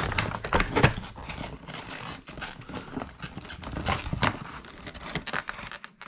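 Clear plastic packaging crinkling and crackling in irregular rustles and clicks as a Rubik's Cube is worked out of its box.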